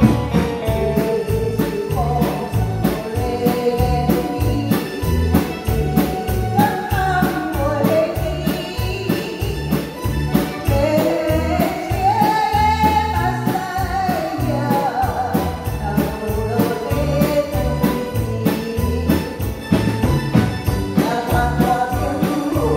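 A woman sings into a microphone over a live band of drum kit, electric bass and keyboard. The sung melody rides on a steady drum beat.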